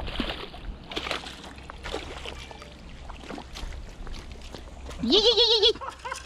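Redfin perch thrashing and splashing at the water's surface as it is landed beside a rock, with scattered splashes and knocks. About five seconds in, a loud wavering cry.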